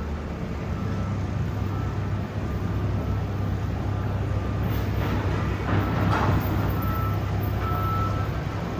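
Steady low mechanical hum of ship and port machinery heard out on an open balcony, with a faint steady high tone over it.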